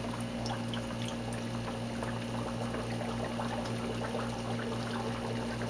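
Air bubbles rising and bursting through the algae in the open, lid-off box of a floating upflow algae scrubber, a steady fizzing gurgle, over a steady low hum.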